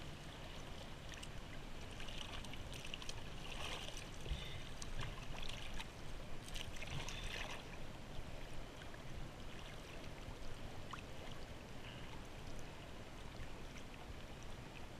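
Small waves lapping and splashing against a skier and a camera floating at the water surface, with splashes now and then in the first half and a steady low rumble underneath.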